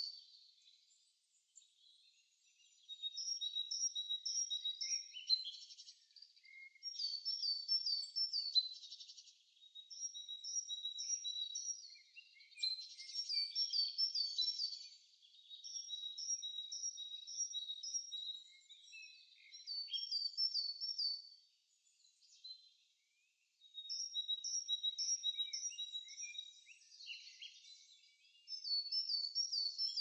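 Songbirds singing in spring woodland. One bird repeats short high phrases of four or five quick, identical notes, a phrase every few seconds. Fainter chirps and a thin steady note from other birds run beneath.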